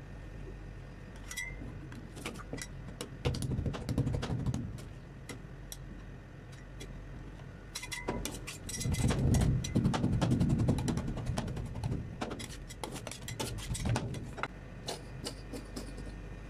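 Metal spatula chopping and tapping on the steel cold plate of a rolled ice cream machine as a Snickers bar is cut into the milky base: many quick clicks and taps, with heavier knocking around four seconds in and again from about nine to eleven seconds, over a steady low hum.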